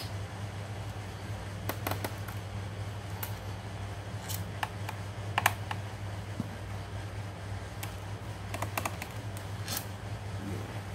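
Irregular light clicks and ticks of a small screwdriver working screws out of the plastic bottom case of an Asus X441BA laptop, over a steady low hum.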